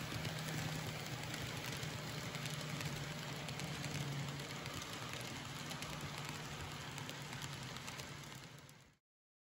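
N scale model trains running on layout track: a steady whir of small locomotive motors and metal wheels rolling on the rails, with a low hum underneath. It fades out about a second before the end.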